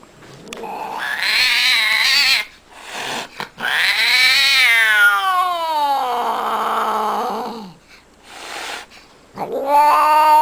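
Angry domestic cat yowling (caterwauling): a wavering yowl about a second in, a long yowl that slides down in pitch to a low, growly end, and another yowl starting near the end.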